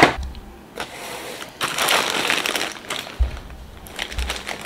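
Cardboard jigsaw-puzzle box being opened, with a sharp knock at the start, then a clear plastic bag full of 1000 puzzle pieces crinkling and rustling as it is lifted out and handled, with a few low bumps.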